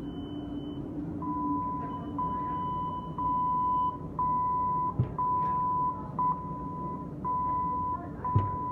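Commercial oven's alarm beeping: one steady high beep repeating about once every 0.8 seconds, starting about a second in, over a low steady hum. Two sharp knocks come midway and near the end.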